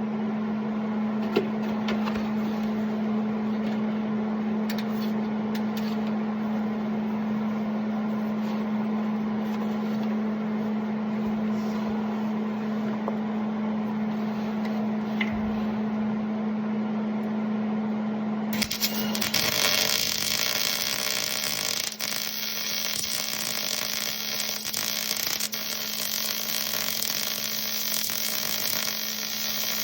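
Steady electrical hum of welding equipment, joined about two-thirds of the way through by a continuous crackling hiss, typical of a MIG welding arc laying a bead on an exhaust pipe.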